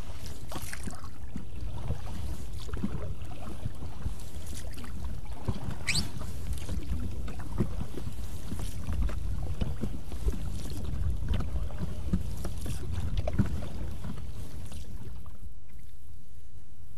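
Oars being worked in an inflatable PVC rowing boat: irregular knocks and splashes from the oars and oarlocks over a steady low rumble, with one sharper knock about 13 seconds in.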